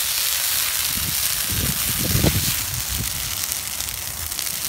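A brush pile of green, leafy branches burning, giving a steady hiss with scattered crackles. A few low thumps come about two seconds in.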